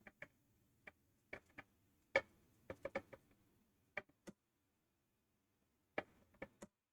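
Faint, irregular small clicks and light taps, about a dozen with a pause near the middle, from handling a cloth and tools on a laptop motherboard while cleaning it.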